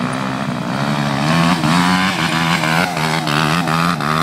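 Dirt bike engine revving hard under throttle, its pitch climbing about a second in and then rising and falling as the rider works the throttle.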